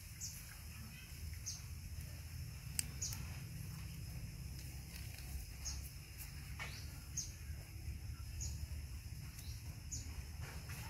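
A small bird calling outdoors: short, high chirps that drop in pitch, repeated about every second and a half, with one longer falling call a little past the middle, over a steady low rumble.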